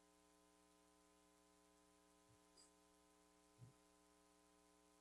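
Near silence with a faint steady electrical hum. A few faint soft knocks come between two and four seconds in.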